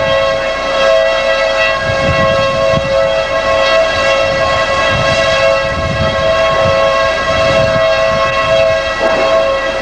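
Outdoor tornado warning siren sounding a steady, unwavering two-note tone, with gusts of low rumble from wind on the microphone.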